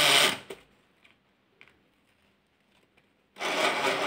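Motor of a Hello Kitty toy ATM money bank running as it draws a banknote in through its note slot, stopping just under half a second in. After a silent gap, it starts again about three and a half seconds in as the next note is fed.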